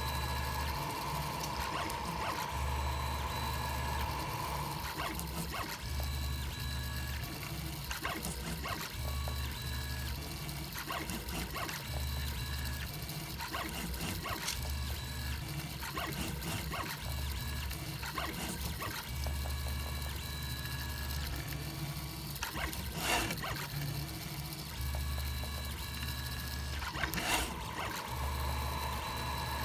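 3D printer's stepper motors running as it prints: a low hum that starts and stops every second or two as the print head moves, over steady higher tones. Two sharp clicks come in the last third.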